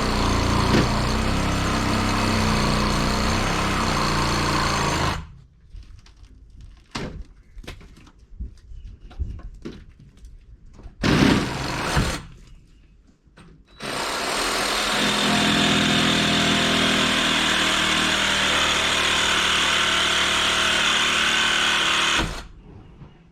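A power tool running steadily in two long runs, the first stopping about five seconds in and the second starting again near the middle, with scattered knocks and a short burst in the pause between.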